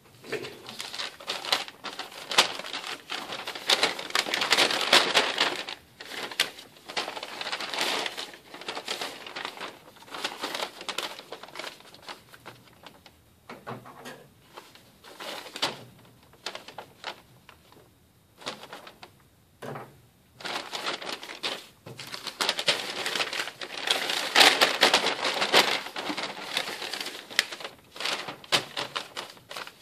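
Paper rustling and crinkling as a fast-food paper bag and an attached paper sheet are unfolded, folded and opened by hand, in irregular bursts with small taps. It is loudest in two long stretches, near the start and about two-thirds of the way through.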